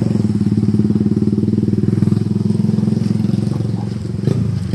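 A small engine running steadily with a fast, even firing beat. A brief sharp knock comes near the end.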